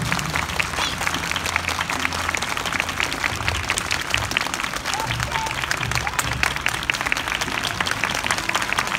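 Crowd applause: many people clapping at a steady, even pace.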